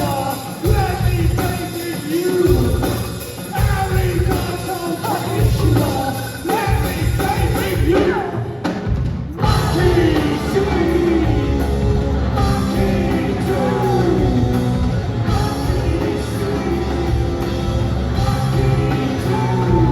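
Post-punk band playing live, a singer's vocals over loud full-band rock music. The high end thins out briefly about halfway through before the full band comes back in.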